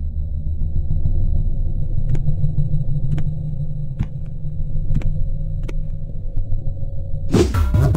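A loud, steady low rumbling drone with a faint hum above it, crossed by a few sharp ticks about a second apart. Electronic music with a beat comes in near the end.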